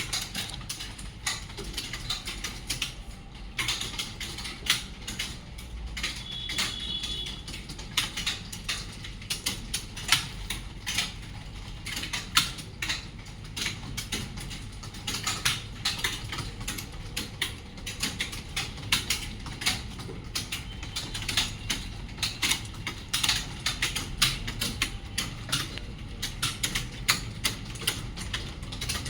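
Many computer keyboards being typed on at once during a timed typing test: a dense, irregular clatter of keystrokes.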